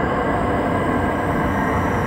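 Tunnel-like wind sound effect: a steady, dense rumble of rushing air, strongest in the low end, with a few faint high whistling tones held over it.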